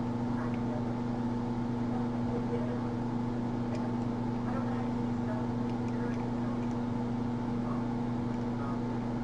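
A steady electrical or motor hum at an unchanging pitch, with a few faint small clicks of a pick working the sliders of an OnGuard slider U-lock.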